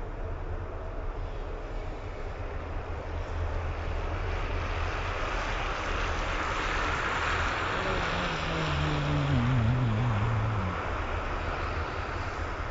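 An engine passing by, growing louder to a peak about eight to ten seconds in, its pitch falling as it goes past, over a steady low rumble.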